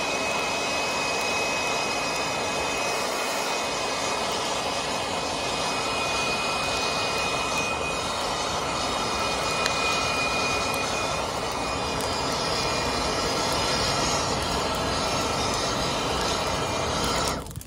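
DeWalt cordless leaf blower running at a steady speed, a constant rush of air with a faint high motor whine, blowing into the base of a wet brush fire to fan the coals; it cuts off abruptly at the very end.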